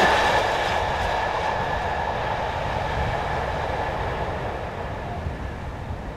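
A freight train of high-sided box wagons rolling past, the wheel noise fading steadily as the last wagons go by and the train draws away.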